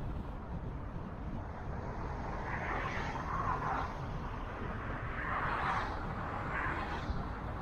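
Car driving on a city road: steady low rumble of engine and tyres, with hissing swells of road noise a few times, as of other vehicles passing.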